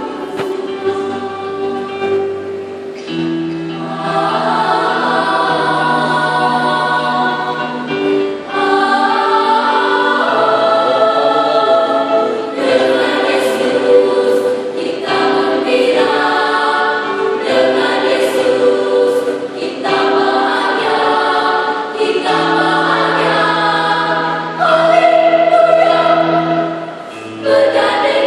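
Children's choir singing a church praise song in several parts, phrase after phrase without pause.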